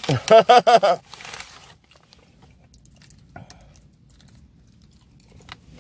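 A short burst of voice at the start, then a paper takeout bag crinkling and rustling as a hand rummages inside it, fading after about a second and a half to a faint low hum with a few small clicks.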